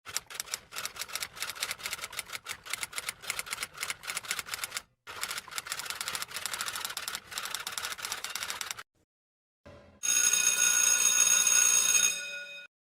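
Typewriter keys clattering in quick, uneven strokes for about nine seconds, with a brief pause midway. About ten seconds in, a bell rings steadily for about two and a half seconds.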